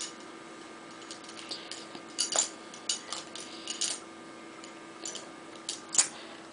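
Plastic baby link rings clicking and clattering together as a baby grabs and mouths them: scattered sharp clicks, the loudest about six seconds in, over a steady faint hum.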